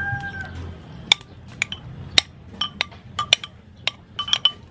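Metal spoon clinking against the side of a clay pot while stirring tamarind pulp in water: about a dozen sharp, irregular taps, some with a short ring.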